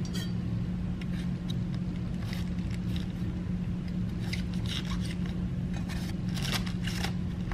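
Chef's knife cutting into a raw cabbage head: short crisp crunching and scraping strokes, more of them in the second half, over a steady low hum.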